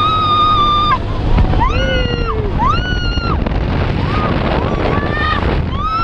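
Riders on a swinging fairground ride screaming: a string of high, drawn-out screams, each under a second long, stronger in the first half. Under them runs the low rush of wind on the microphone.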